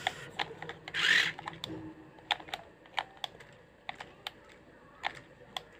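Toy RC off-road car being tested after its steering repair: a brief whir of its small steering motor about a second in, then scattered light plastic clicks and taps as the car and remote are handled. The steering works again now that the steering motor's gear has been pressed back into mesh.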